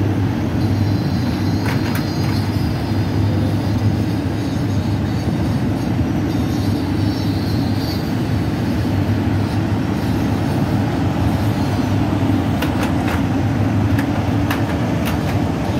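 Steady rumble of a moving train's carriage running on the rails, heard from its open window. A faint high whine comes and goes in the first half, and a few sharp clicks come near the end.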